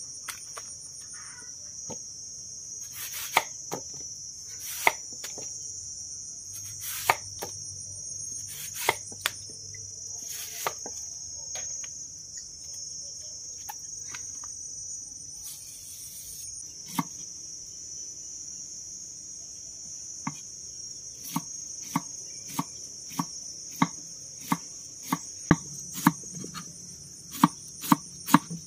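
Cleaver chopping banana-stem core on a wooden cutting board: a run of sharp strikes beginning past the middle and quickening near the end. Earlier there are only scattered knocks. Insects chirr steadily and high-pitched throughout.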